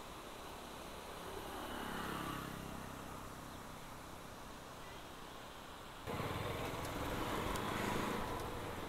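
Faint roadside sound with a vehicle engine swelling past about two seconds in. About six seconds in it cuts sharply to a louder, steady motorcycle engine and road noise.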